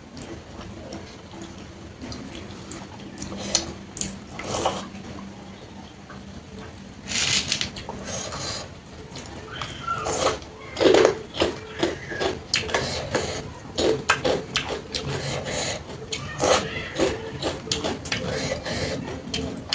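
Close-up eating sounds: wet chewing and slurping of water-soaked rice, with many short irregular smacks and clicks and a longer noisy stretch about seven seconds in.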